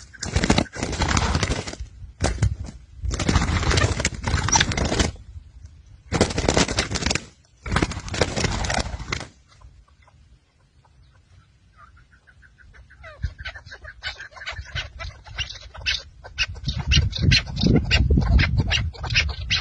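Chukar partridges at a trap. The first half has loud bursts of wing-flapping and scuffling, each a second or two long, then a short lull. In the second half come rapid clucking calls, several a second.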